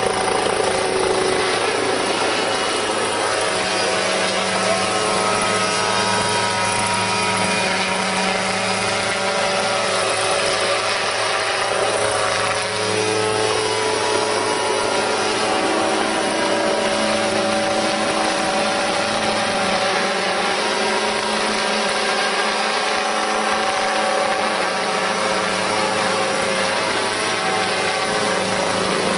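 Unmanned remote-controlled crop-spraying helicopter in flight: its small engine and rotor make a steady drone whose pitch drifts up and down as it manoeuvres.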